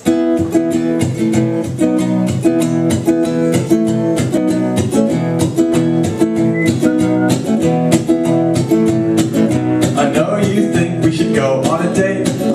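Acoustic guitar strumming chords in a steady rhythm, the instrumental intro of a song played live.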